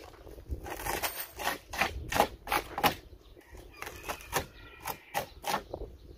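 Irregular sharp clicks and knocks, two or three a second, the loudest about two and three seconds in.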